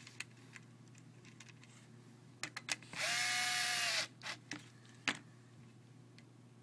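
Small power-tool motor whirring for about a second, its pitch rising slightly then falling, with scattered small clicks of parts and wires being handled before and after.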